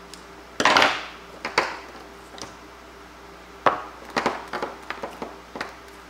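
Vinyl electrical tape being wrapped around a power cable: a short ripping sound as tape is pulled off the roll about half a second in, a smaller one soon after, then a string of short clicks and rustles of handling near the end.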